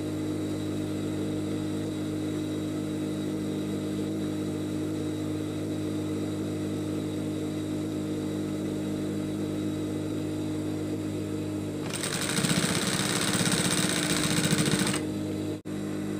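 Industrial sewing machine's motor humming steadily while the needle is still. About twelve seconds in the machine sews a fast run of stitches for about three seconds, then stops.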